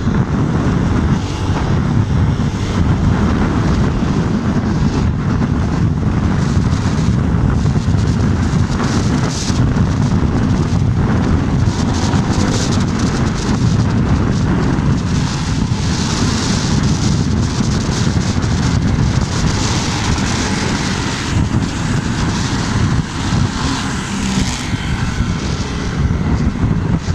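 Motorcycle riding at road speed: steady wind rush buffeting the microphone over the engine and tyre noise.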